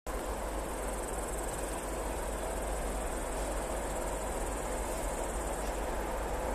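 Insects chirring steadily in a high, rapidly pulsing band, over a low steady rumble.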